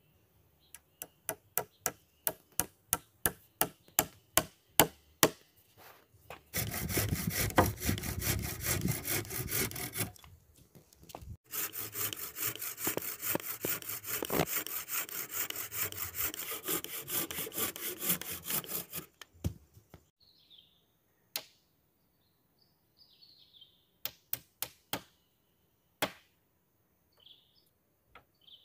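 Hand saw cutting wood: a run of short quick strokes, about three a second, then two long stretches of fast, steady sawing with a short pause between. A few single knocks and faint bird chirps follow near the end.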